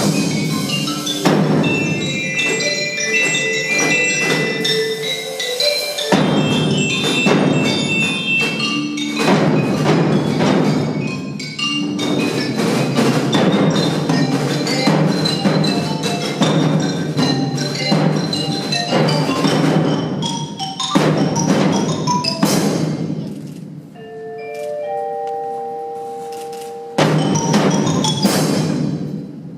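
Percussion ensemble playing music, with pitched mallet instruments (marimba, glockenspiel, bell-like tones) over repeated drum and cymbal strokes. About three-quarters of the way through it drops to a quieter passage of held notes, then comes back with a loud burst of strokes near the end.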